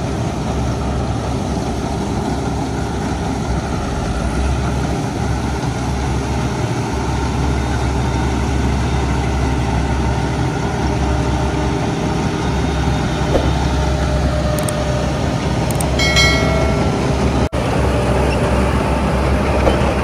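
A heavy engine running steadily, with a continuous low hum. Late on, a brief higher-pitched tone sounds over it.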